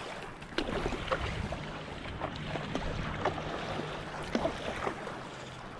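Seawater splashing and slapping against the nose of a moving stand-up paddleboard, with scattered small splashes.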